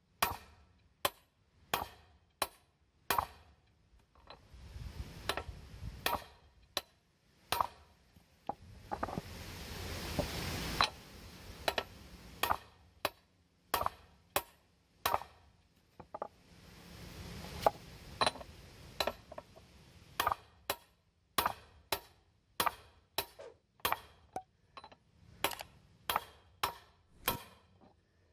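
Repeated hammer blows on the steel yoke of a heavy truck driveshaft, about one to two a second with a couple of short pauses, driving a U-joint bearing cap up out of the yoke.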